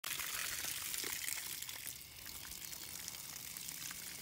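Water spraying from a garden hose nozzle onto a hanging deer carcass, a steady rush of spray splashing off the hide.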